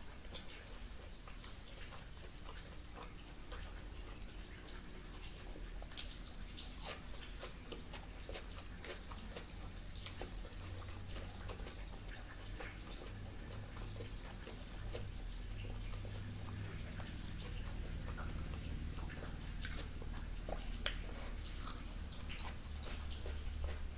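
Close-miked chewing and mouth sounds of someone eating, with many small wet clicks and a few sharper clicks, one near the start and two about six and seven seconds in, over a low steady hum.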